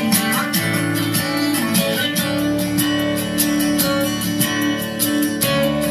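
A song with strummed guitar and a steady beat, played at full volume through an Xdobo Wing 20 W Bluetooth speaker and picked up by the microphone in the room.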